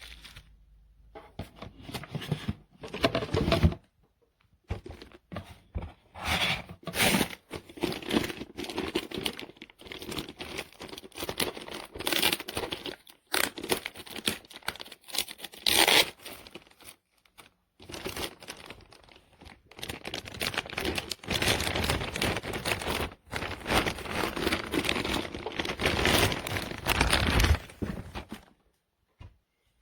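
Packaging being handled by hand: irregular crinkling, rustling and tearing in short bursts, with a few brief pauses.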